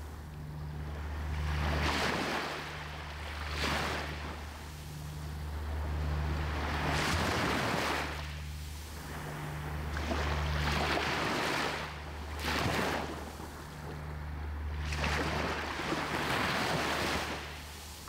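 Small sea waves breaking and washing up a sandy beach in surges of surf hiss every two to three seconds, over a low steady rumble.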